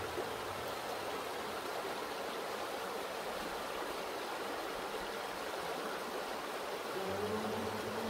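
River rapids with a steady rush of water. A low hum comes in about seven seconds in.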